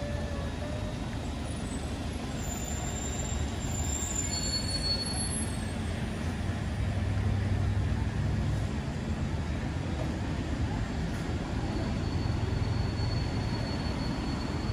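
City street ambience: a steady low rumble of passing road traffic.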